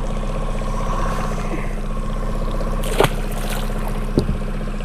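Boat motor running steadily at trolling speed, with water noise around the hull. Two short sharp sounds, a knock or splash, come about three seconds in and again about a second later.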